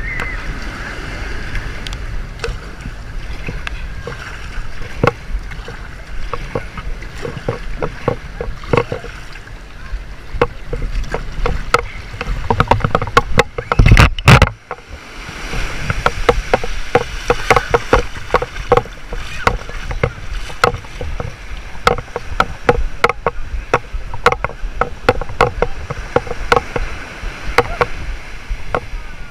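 Plastic sit-on-top kayak being paddled through calm, gently lapping sea water into the shallows: a steady wash of water and wind with frequent knocks and clicks. One loud thump comes about halfway through, as the kayak reaches the beach.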